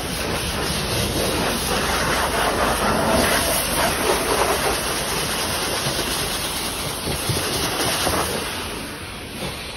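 Pressure washer spraying water onto a car's bodywork: a steady rush of spray that eases off near the end.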